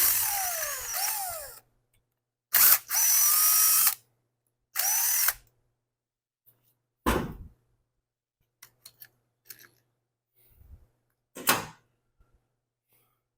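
Cordless drill/driver run in three short bursts, its motor whine sliding up and down in pitch as the trigger is squeezed and let go, likely driving out hex screws. Then come a few light clicks and a couple of knocks.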